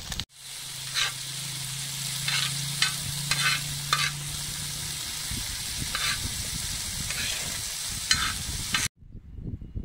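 Minced meat with chopped peppers and onions sizzling on a wide steel griddle disc, with a metal spoon scraping across the hot steel again and again as it is stirred. The sizzle stops abruptly near the end.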